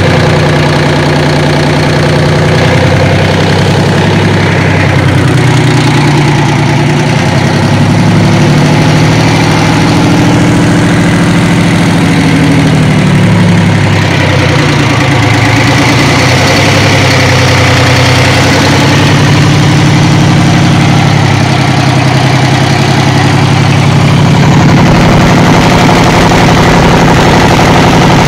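Detroit 6-71N naturally aspirated six-cylinder two-stroke diesel engine running loudly and steadily on a test run.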